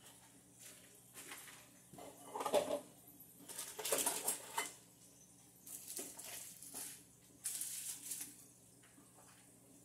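Irregular rustling and clattering noises in several short bursts, the loudest about four seconds in, over a faint steady hum.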